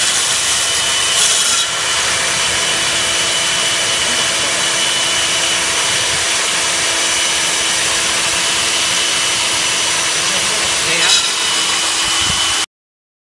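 Hilti diamond core drill on a rig stand, its water-fed core bit grinding steadily into a concrete slab over a steady motor whine. The sound cuts off abruptly near the end.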